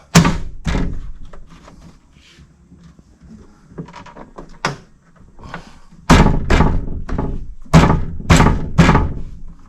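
Taps and thumps on a 2011 Ford Expedition's driver door, knocking the keyless-entry keypad assembly into its seat. A few light taps, then a quick run of about six hard thumps in the last few seconds.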